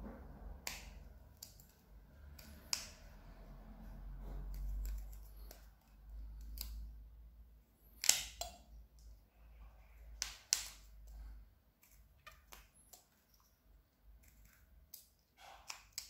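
Carving knife slicing small cuts into a piece of wooden branch: irregular sharp clicks and snaps as chips come off, the sharpest about eight seconds in. A low rumble runs under the first three-quarters.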